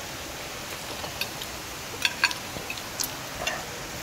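A few light clicks and clinks of metal forks and spoons against ceramic plates as people eat, over a steady background hiss; the sharpest pair of clinks comes about two seconds in.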